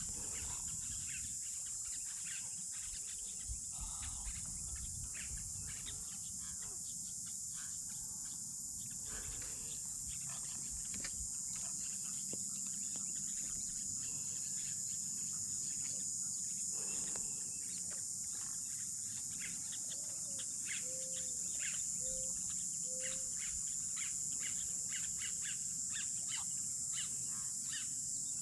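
Outdoor nature sound: a steady high-pitched insect chorus, with birds chirping in many short chips and a run of four short, low, clear notes about three-quarters of the way through.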